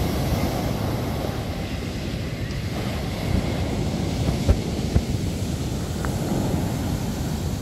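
Surf breaking and washing up a sandy beach in a steady rush, with wind rumbling on the microphone. Two short thumps come about halfway through.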